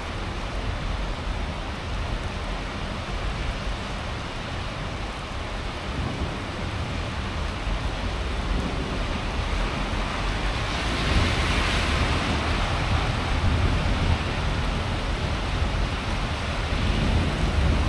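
Steady rain falling in a storm, with wind rumbling on the microphone. The hiss swells to its loudest about ten to twelve seconds in, and the whole sound grows louder toward the end.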